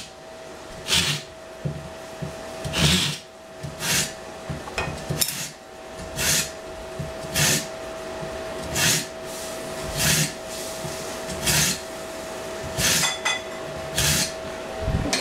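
Repeated short scraping strokes of a kitchen utensil, about one every second and a half, over a faint steady hum.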